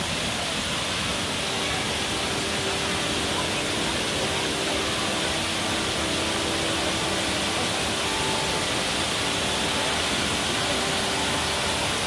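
Steady, unbroken rush of a waterfall pouring into a pool.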